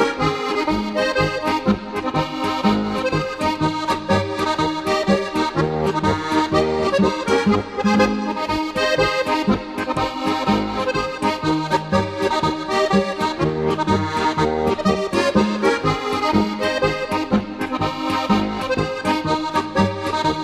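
Bavarian folk tune played on accordion, with bass notes stepping in a steady oom-pah beat.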